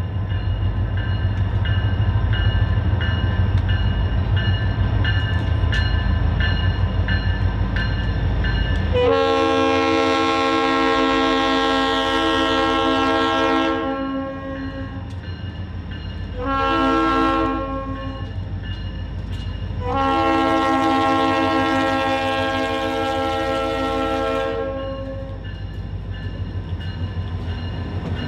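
New England Central diesel locomotive sounding its air horn for a grade crossing: a long blast about nine seconds in, a short one, then another long one, each a steady chord of several notes. Under it runs a heavy low rumble, with the crossing bell ringing at an even pace of about two strokes a second, and the rumble grows louder near the end as the locomotive reaches the crossing.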